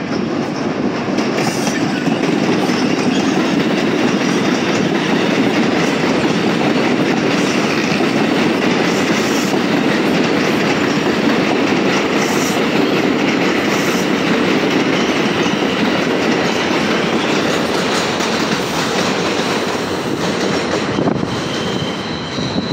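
A Bombardier R142 subway train passing close by at speed: a loud, steady sound of steel wheels on rail, with occasional clicks. It eases off slightly near the end.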